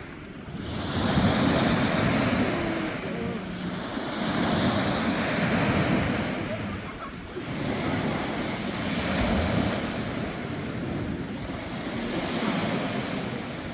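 Small sea waves breaking and washing onto the beach, swelling and fading about every three to four seconds, with wind rumbling on the microphone.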